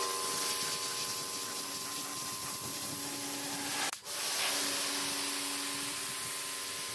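Pressure washer spraying a jet of water onto a car's rear bodywork: a steady hiss with a steady whine underneath, breaking off briefly about four seconds in.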